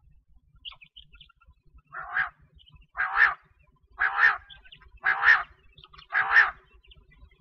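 Female quail calling: five raspy calls, evenly spaced about a second apart, starting about two seconds in.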